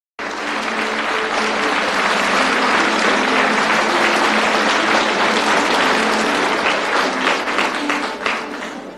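Audience applauding: dense clapping that starts abruptly and thins into scattered separate claps near the end, with faint music underneath.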